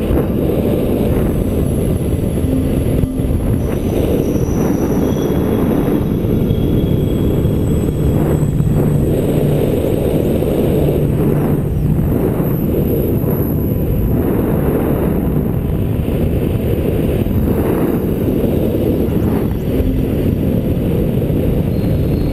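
Wind rushing over the camera microphone of a paraglider in flight: a loud, steady low rumble with irregular buffeting.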